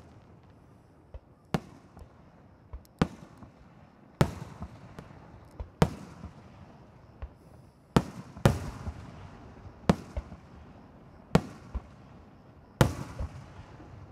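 Aerial firework shells bursting overhead: about a dozen sharp bangs at uneven intervals of half a second to a second and a half, each trailing off in a rolling echo, the loudest about eight seconds in and near the end.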